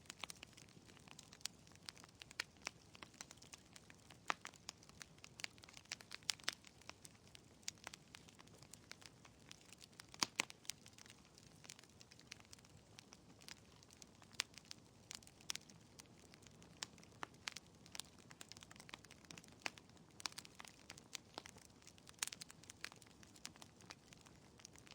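Wood fire burning in a fireplace, crackling: irregular sharp pops and snaps over a faint hiss, with the loudest pop about ten seconds in.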